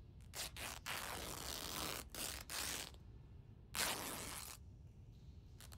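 Cloth being handled: a run of short, rough rustling strokes, about six of them, the longest about a second, with the loudest near four seconds in.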